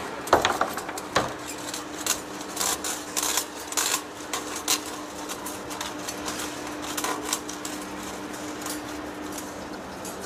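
Heavy-duty lathe taking a cut: a steady machine hum under irregular metallic clicks and rattles as curled metal chips break off the cutting tool and fall. The clatter is busiest in the first five seconds, with its sharpest clicks right at the start, and comes back briefly around the seven-second mark.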